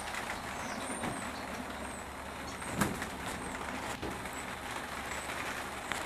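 Rain falling on a greenhouse roof: a steady hiss of drops on the panels, with a louder single tap a little under three seconds in.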